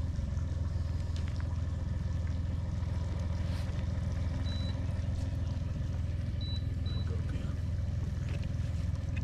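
Boat motor running with a steady low hum. Three short high beeps sound about four and a half seconds in and twice more at about six and a half and seven seconds.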